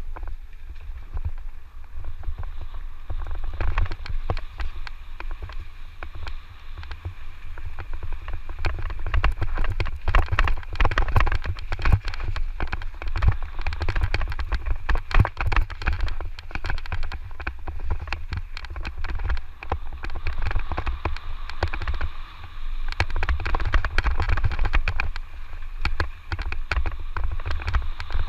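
Electric mountain bike ridden fast down a rough dirt trail: wind rumbling on the microphone over a constant clatter of clicks and rattles from the tyres and frame on rocky, sandy ground, busiest in the middle and near the end.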